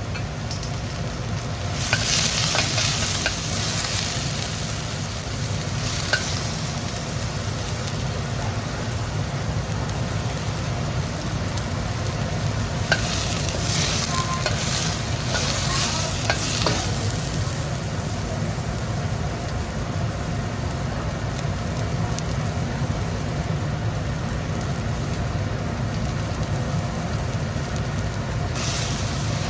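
Diced jalapeño and mini bell peppers sizzling in oil in a hot wok on high heat as they are stir-fried. The steady hiss swells louder a couple of seconds in, again around the middle and near the end, with a few faint clicks.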